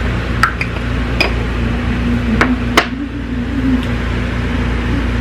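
A steady low hum with a held tone. Over it come about six short light clicks and taps in the first few seconds, from makeup brushes and powder containers being handled.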